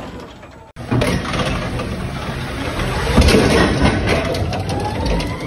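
Forklift running as it drives, with a whine rising in pitch over the last couple of seconds. The sound drops out briefly just under a second in.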